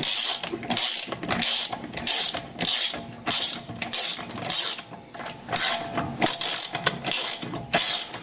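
Ratchet wrench clicking in repeated back-and-forth strokes, about two a second, turning out a wheel lug bolt.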